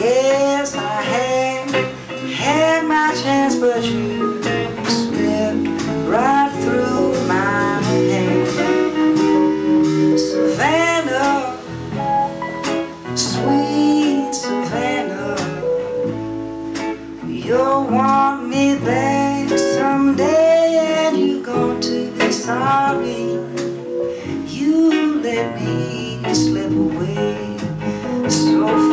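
Live band playing an instrumental break: a lead melody of bending, sliding notes over strummed acoustic guitar and bass.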